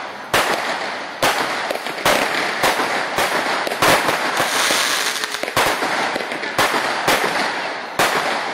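Fireworks going off in quick succession: about a dozen sharp bangs, roughly two a second, with continuous crackling between them.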